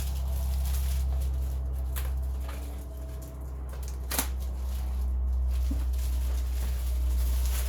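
A steady low hum throughout, with a few light clicks and taps of metal wrenches being handled in their case, the sharpest about four seconds in.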